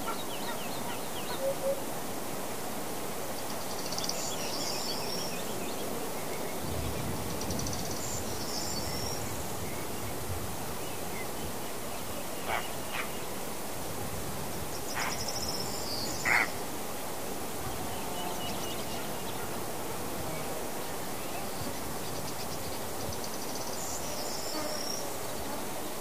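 Summer forest ambience: a bird trills high four times, several seconds apart, over a steady hiss. A few short sharp calls come around the middle, the last of them the loudest.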